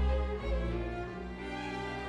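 Background music: a string orchestra playing slow classical music, violins over cellos and deep bass notes.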